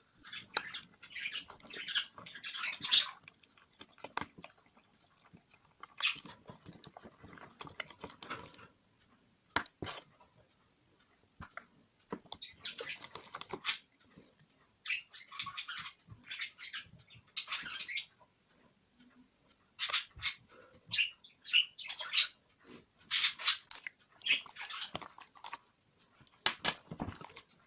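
Homemade glue-based slime being squeezed and worked by hand, sticky and wet squishing in irregular bursts of a second or two with small clicks and pops.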